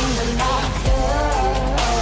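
Pop song playing, with a sung melody that wavers in pitch over steady accompaniment.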